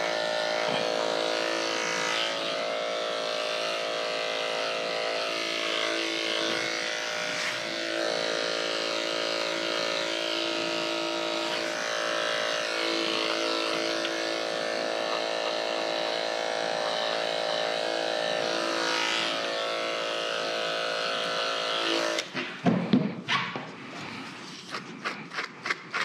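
Electric dog grooming clippers running steadily as they shave a dog's coat, switching off suddenly about 22 seconds in. Then a few short, uneven scratchy strokes of a slicker brush through the clipped fur.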